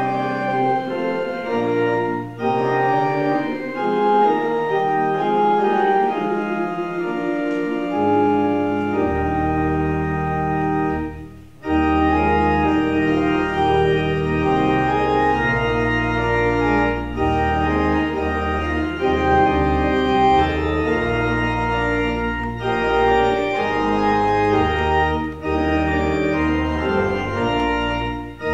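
Church organ playing slow, held chords in phrases with brief breaks between them; a deep pedal bass joins about a third of the way in.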